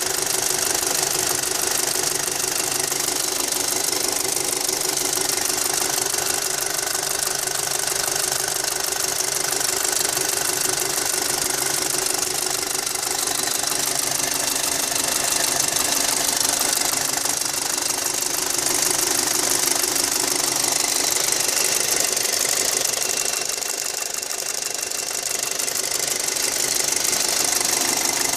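Audi A4 2.0T's turbocharged four-cylinder engine running steadily with a fast, continuous ticking rattle. The owner cannot say what is causing the tick.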